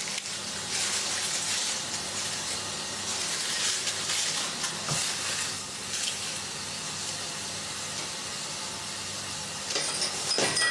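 Food sizzling and frying in a hot pan, a steady hiss, with a few short knocks near the end.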